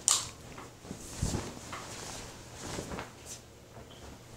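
A cloth bed sheet being handled over a plastic rod-and-connector fort frame: a sharp swish at the start, then scattered rustles, with a dull thump about a second in.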